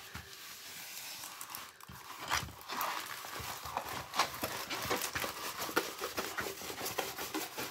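Rustling and crinkling of a rolled diamond painting canvas and its white cover sheet being handled and rolled up, with many small clicks and taps throughout.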